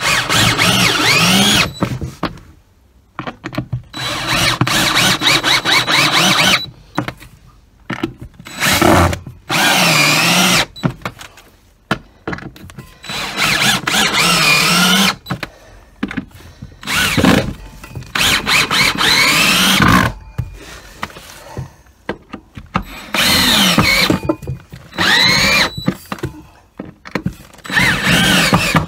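Cordless drill-driver driving long wood screws through a steel table-leg base plate into a wooden floor, in about nine bursts of one to three seconds with short pauses between. The motor's pitch slides up and down within each burst.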